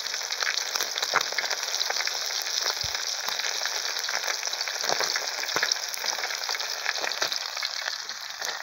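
Fish pieces deep-frying in a wide pan of hot oil: a steady sizzle with many small pops and crackles.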